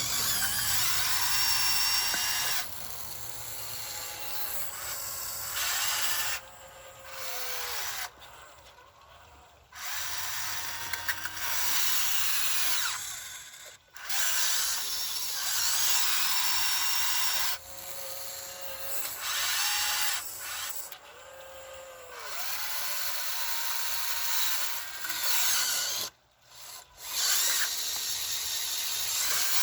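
Huina 1599 RC excavator's small electric gear motors whining in stop-start runs of a few seconds each, the pitch rising and falling as the motors start, change speed and stop.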